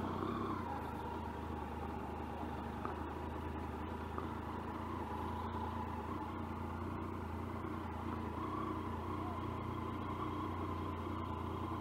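Motorcycle engine idling steadily: an even low hum with a faint steady whine above it, with no revving.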